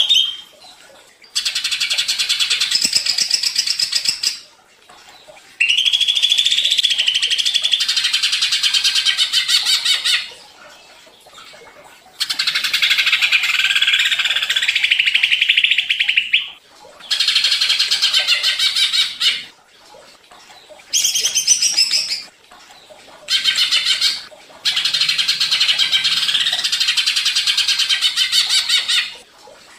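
Cucak ijo (green leafbird) singing in agitated, full song: about seven bursts of fast, high chattering notes, each lasting one to four seconds, with short pauses between them. It is the provoked song used as a lure to spur other cucak ijo into singing.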